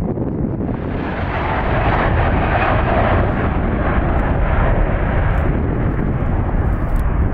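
Airbus A330's twin Rolls-Royce Trent 700 jet engines at takeoff thrust as it climbs out: a steady, deep roar that swells louder about a second and a half in and holds.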